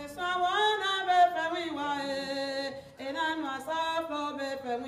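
A single voice singing a slow unaccompanied melody in long held notes, two phrases with a short break about three seconds in.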